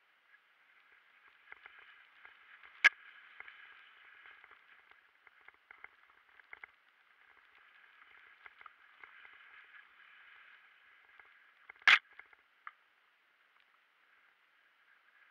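Mountain bike riding down a rough dirt singletrack, heard muffled through a mounted action camera: a steady run of small rattles and ticks, with two sharp loud knocks about nine seconds apart.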